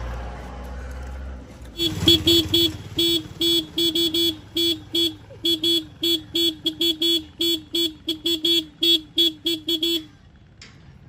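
A vehicle horn honking in a long run of short, quick beeps, a few a second and unevenly spaced, over a low engine rumble. The beeps start about two seconds in and stop suddenly near the end.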